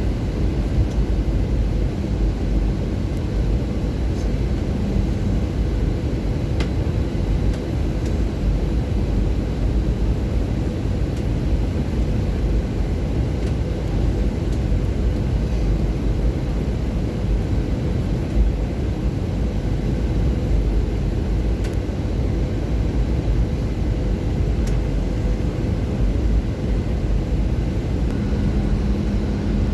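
Steady cabin noise inside an Airbus A320 in descent: an even low rumble of airflow and engines, with a faint steady hum above it.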